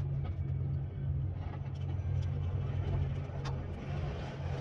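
Diesel engine running steadily, a low even drone.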